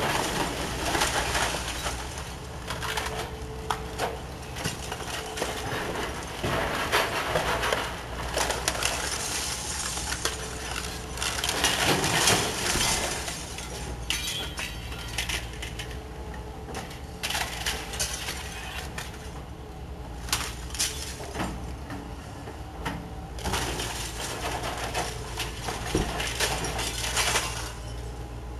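Hydraulic excavator demolishing a building wall: repeated cracking and crashing of breaking wall material and falling debris, with the loudest crash about twelve seconds in, over the steady running of the excavator's diesel engine.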